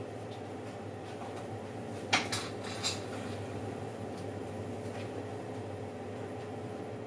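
An oven running with a steady fan hum. A quick cluster of three or four sharp clicks comes about two seconds in.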